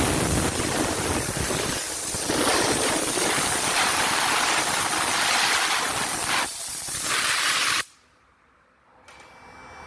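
Steam car-wash gun spraying a loud, steady hissing jet, dipping briefly twice, then cutting off suddenly near the end.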